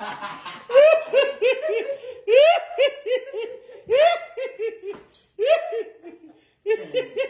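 Hearty laughter: about five runs of quick, high 'ha' syllables, each syllable falling in pitch, with short pauses between the runs.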